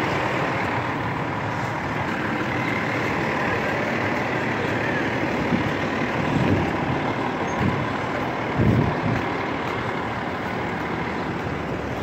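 Rear-loader garbage truck's diesel engine running close by, with a few low thumps between about six and nine seconds in, the loudest near nine seconds.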